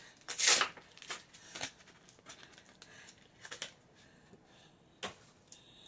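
Cardboard cream cheese carton being opened and the foil-wrapped block slid out and handled: a series of short papery rustles and scrapes, the loudest about half a second in.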